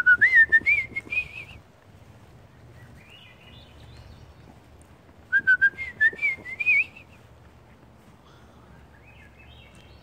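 A thrush singing: two loud flute-like phrases of whistled notes spiralling upward in pitch, one at the start and one about five seconds in, with fainter rising phrases from a farther bird in between and near the end.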